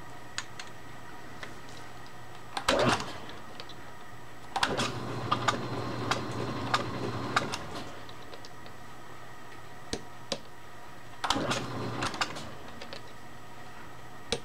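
Small metal lathe run briefly twice, its motor humming for a few seconds each time, with sharp metallic knocks and clicks between runs as a bolt and nut are adjusted in the three-jaw chuck to run square.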